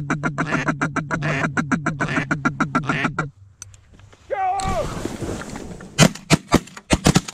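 Duck call blown in a fast, even chatter for about three seconds, then a short falling call. About six seconds in, a rapid volley of shotgun shots from more than one hunter, several within a second or so.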